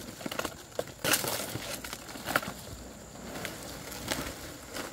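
Dry fan-palm leaves rustling and crackling as they are handled and stacked, in irregular sharp crackles, the loudest about a second in and again a little past two seconds.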